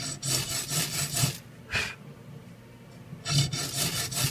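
A thin blade rasping back and forth across a ferrocerium rod clamped in a vise, cutting grooves and throwing sparks. There are two runs of quick strokes with a pause and a single stroke between them.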